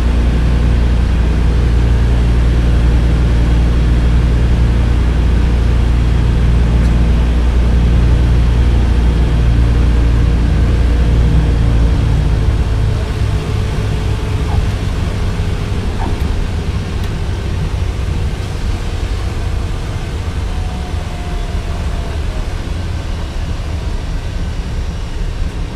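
Douglas DC-3's twin Pratt & Whitney R-1830 radial engines heard from inside the cabin, running with a steady drone on the landing approach. About halfway through the drone drops in level and turns into a rougher, uneven rumble with slowly falling engine tones as power comes off for the landing.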